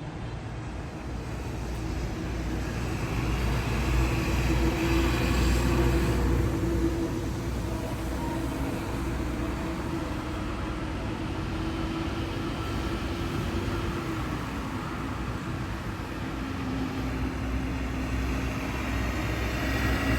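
A road vehicle's engine running close by, growing louder over the first few seconds, with a steady hum that drops in pitch about two-thirds of the way through as the engine slows.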